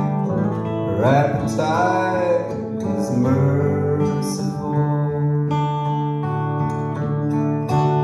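Live folk song played on acoustic guitar, electric guitar and cello, with sustained low notes under the guitars.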